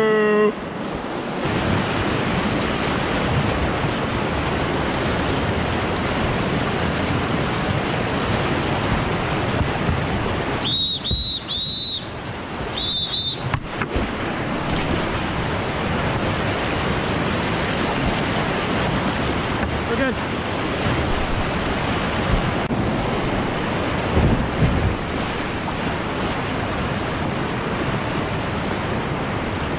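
Rushing whitewater of a river rapid, a steady roar of water with wind buffeting the microphone. Around eleven to thirteen seconds in come five short high tones, three and then two.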